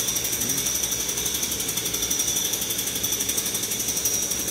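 A steady mechanical rattle pulsing rapidly and evenly, with a steady high-pitched whine over it.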